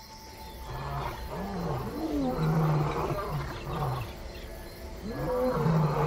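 African lions roaring at night: a run of deep roars and shorter grunting calls, starting about a second in, easing off just past the middle, then starting up again near the end.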